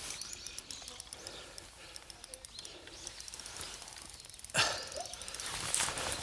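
Spinning reel ticking in quick clicks while a hooked bass is held snagged in submerged cover, then a sudden louder noise about four and a half seconds in.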